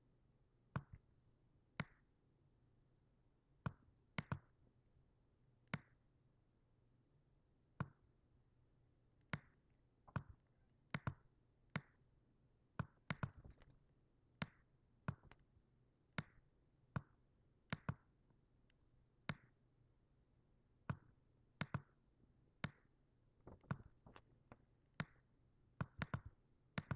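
Computer mouse clicking: sharp single clicks at irregular intervals, roughly one a second, some in quick pairs and closer together near the end, over a faint low hum.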